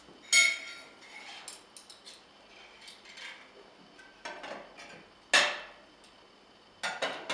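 Spoons and plates clinking as tableware is handled. A sharp ringing clink comes about half a second in, the loudest about five seconds in, and a few quick clinks follow near the end, with lighter knocks between.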